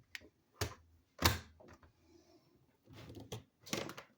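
Handling noise: a handful of short knocks and clicks, the loudest a little over a second in, with a few more close together near the end.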